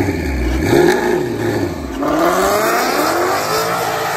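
Twin-turbo Ford Mustang GT's 5.0 Coyote V8 at the drag-strip start line. Its revs rise and fall for the first two seconds, then it launches and pulls away, the engine pitch climbing steadily as it accelerates.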